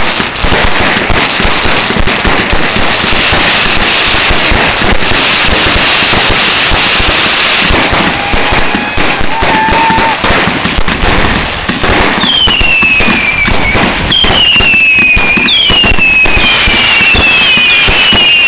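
Aerial fireworks going off in quick succession: a dense stream of launching thuds, cracks and bangs. From about twelve seconds in come many overlapping whistles, each falling in pitch.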